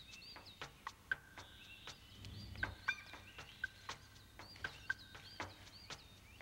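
Faint, irregular high chirps and short clicks from small animals calling.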